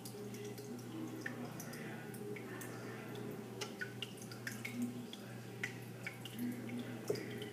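Water dripping and lightly splashing in a turtle's tank: scattered small drips and clicks throughout, over a steady low hum.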